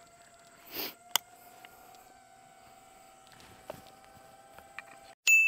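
Faint steady whine of a distant FPV drone's motors, rising a little in pitch after a couple of seconds, with a click of shotgun handling about a second in. Right at the end a loud high ringing tone cuts in suddenly.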